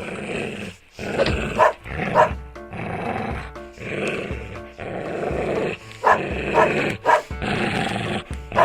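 A dog barking in two runs of about three barks each, over background music.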